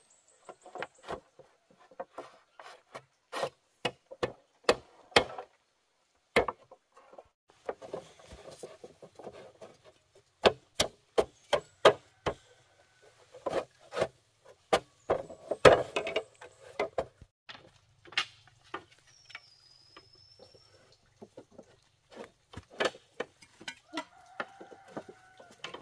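Bamboo being knocked and scraped: a run of irregular sharp knocks with rubbing and scraping between them, the loudest knock about two-thirds of the way through.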